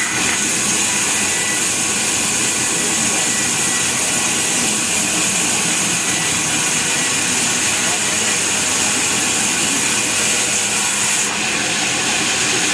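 Sawmill saw cutting through a log: a loud, steady, hissing whine of the blade in the wood, with the highest hiss easing off a little near the end.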